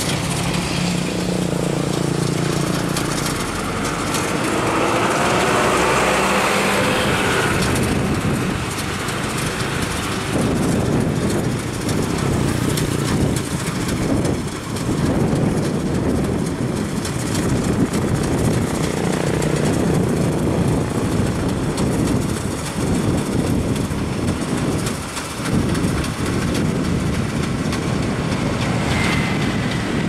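Rice combine harvester running at work: its diesel engine and cutting and threshing machinery make a steady, loud mechanical noise, with an engine hum clearest in the first few seconds.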